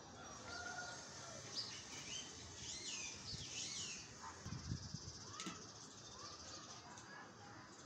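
A chocolate Labrador lapping water from a metal pot, loudest about halfway through, with faint bird chirps in the background.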